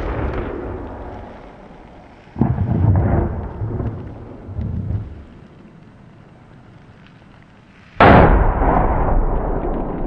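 Blasts of an airsoft sniper-fire simulator, heard across open ground: the tail of one blast fades at the start, a second comes about two seconds in with more rumbling after it, and the loudest comes near the end. Each starts with a sudden bang and rolls away over several seconds. The blast signals that a player has been hit by the simulated sniper and is out.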